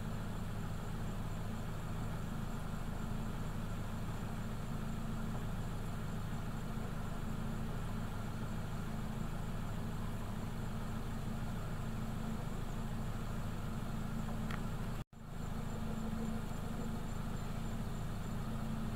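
Vehicle engine idling with a steady low hum, cutting out for an instant about fifteen seconds in.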